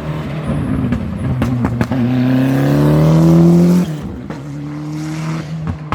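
Rally car engine accelerating hard at full throttle, its pitch climbing for about two seconds before it lifts off abruptly, then running on at a steadier note, with a few sharp cracks just before the climb.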